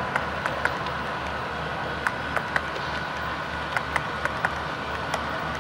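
HO scale model train cars rolling past on the layout's track, wheels clicking sharply a few times a second over a steady rolling hum.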